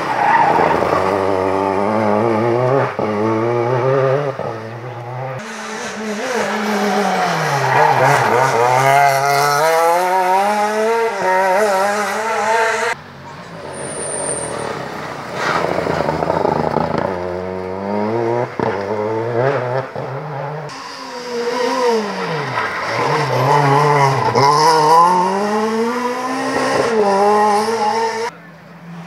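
Rally car engines taking a hairpin, two separate passes that each end abruptly, the first from a Renault Clio rally car. In each pass the engine note drops as the car brakes and shifts down into the bend, then climbs again through the gears as it accelerates out.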